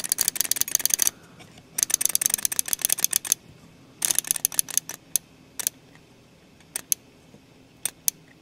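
Mechanical flip clock being advanced by hand with its setting dial: the minute tiles click over in three quick runs of rapid clicks, then one or two at a time near the end.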